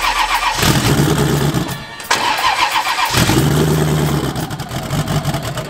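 Starter cranking a frozen twin-turbo V8 primed with brake parts cleaner. The engine catches and runs rough for about a second, drops back to cranking, then catches again about three seconds in: a cold start that keeps stumbling.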